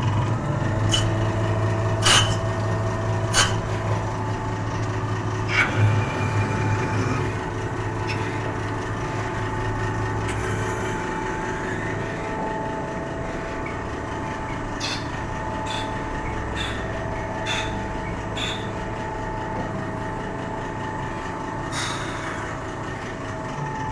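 Small CNC lathe running in production: a steady motor and spindle hum with high, even tones over it, and sharp metallic clicks and knocks now and then, several close together in the second half.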